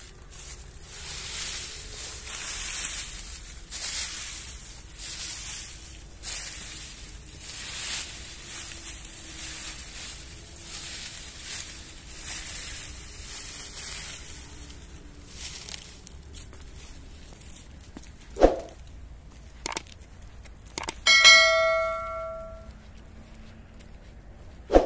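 A run of noisy, hissing strokes about once a second, then a sharp knock, a couple of clicks and a loud metallic clang that rings on for over a second, as of a metal cooking pot or bowl being struck.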